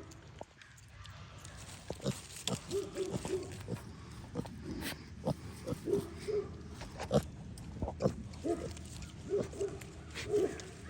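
Kunekune piglets grunting in short, repeated calls as they feed, with scattered sharp clicks and knocks among the grunts.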